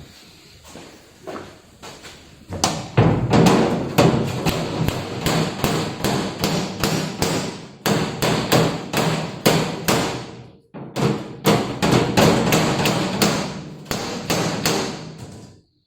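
Hammer blows on a metal toolbox: a few light taps, then a quick run of sharp ringing strikes at about three a second, with one short pause partway through.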